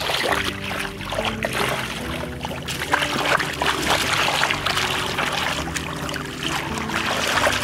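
Bare hands scooping and churning thick mud and muddy water in a shallow puddle, with repeated splashes and trickling of water.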